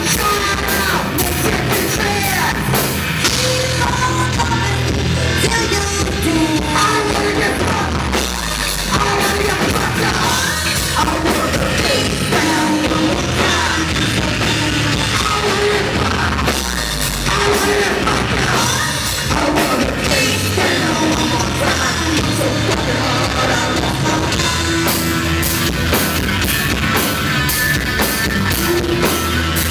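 Rock band playing heavy, loud music: a pounding drum kit and distorted guitars under a singer's vocal line.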